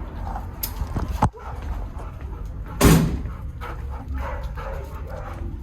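A dog barks once, sharply, about three seconds in, over a steady low hum. A few sharp knocks come about a second in.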